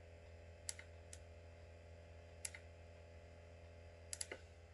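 Near-quiet room with a steady low hum and a few small, sharp clicks spaced out over a couple of seconds, then three in quick succession near the end.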